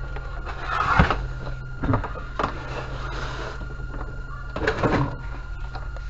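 Handling noises: a knock with a rustle about a second in, two shorter knocks soon after, and a longer rustling clatter near five seconds, over a steady low hum and a faint steady whistle.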